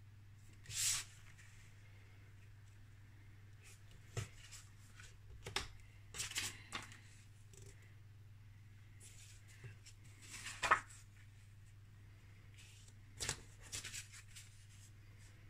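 Sheets of patterned paper and cardstock being handled and laid on a tabletop: short rustles and light taps every second or two, over a faint steady low hum.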